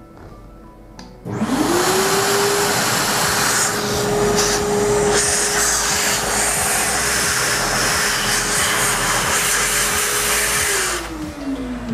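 Vacuum cleaner switching on about a second in, its motor whine climbing to a steady pitch under a loud rush of air as the hose sucks at the discharge chute of a Eureka Mignon Silenzio coffee grinder. It switches off near the end, and the whine falls away.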